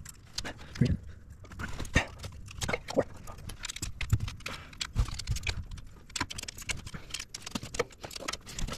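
Irregular metallic clicks and knocks of a 1/4-inch drive ratchet with a long extension and a 10 mm deep socket being fitted down onto a glow plug among the rocker arms of a 7.3 Powerstroke diesel's cylinder head.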